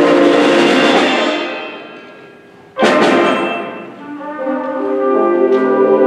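Concert band playing: a loud full-band chord with a cymbal crash fades away over about two seconds. A second sudden crash comes near three seconds in, and sustained brass chords swell back up.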